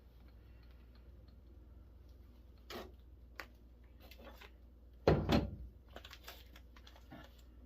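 Cut pieces of a metal door handle being handled and set down on a work surface: a few light clicks, then a louder clunk with a short clatter about five seconds in.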